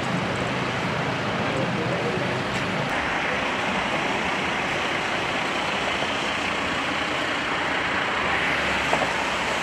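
Steady noise of motorway traffic passing, tyres hissing on wet tarmac, with a short click near the end.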